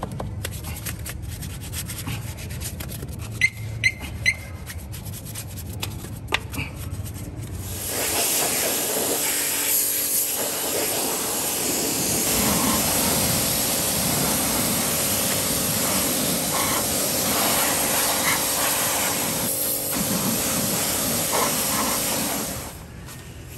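A small bristle brush scrubbing soapy foam on a motorcycle's spoked rear wheel, with a few sharp clicks. About a third of the way in, a spray of water starts and hisses steadily as it rinses the suds off, then stops near the end.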